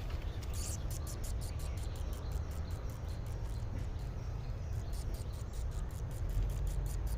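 An insect chirping in a fast, even rhythm of about six short high chirps a second, over a low steady hum.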